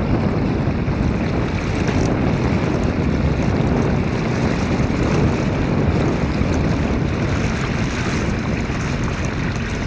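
Steady wind noise buffeting the microphone, mixed with the rush and lapping of sea water around a small boat.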